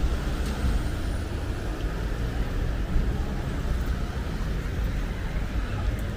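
Steady street traffic: motor vehicles running and passing, heard mostly as a continuous low engine and tyre noise.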